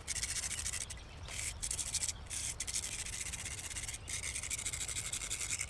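A drawing tool scratching across a rough road surface in quick back-and-forth strokes while the outline of a picture is sketched, with a few brief pauses between runs of strokes.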